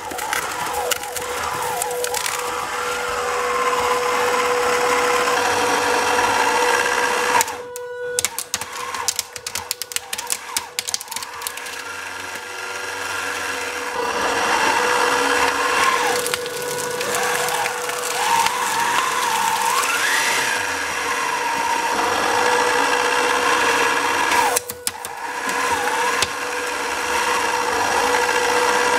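3D-printed shredder and its 3D-printed gearbox running, with a steady gear whine over cracking and crunching as material is fed through the cutters. The higher whine wavers up and down as the load changes. The sound breaks off briefly twice, about eight seconds in and near the end.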